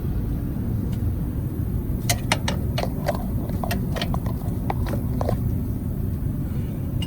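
A socket wrench on the battery cutoff switch bolt gives a run of sharp metal clicks, about three or four a second and unevenly spaced, for about three seconds from two seconds in. A steady low rumble lies under it throughout.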